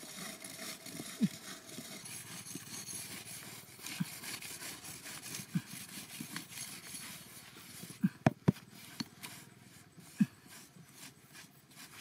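A small metal blade scraping and digging into dry dirt, with hands brushing and patting the loosened soil. Scattered light knocks and clicks, several close together about eight seconds in.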